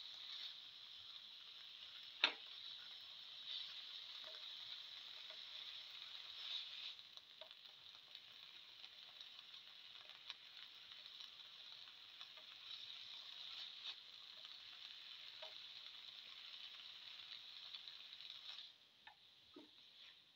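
Spinach, tomato and shallots frying with a faint steady sizzle in an oiled pan while a slotted spatula stirs them, with light scrapes and taps against the pan. A sharp tap about two seconds in is the loudest sound, and the sizzle drops away near the end.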